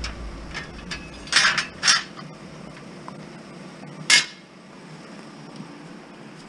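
Steel bed frame rails clanking against each other as they are gathered up: three sharp metal clanks, two close together about a second and a half in and one more about four seconds in.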